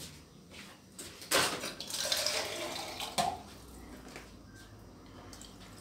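Water running from a kitchen tap for about two seconds, filling a cup, starting with a knock and ending with a click as it is turned off.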